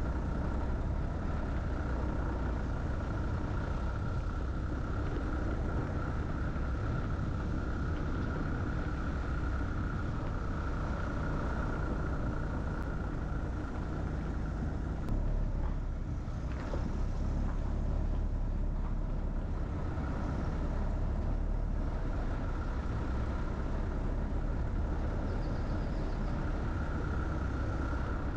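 A car driving slowly: a steady low drone of engine and road noise, with a constant hum running through it.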